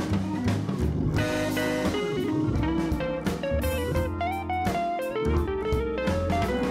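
Background music led by guitar over a steady beat.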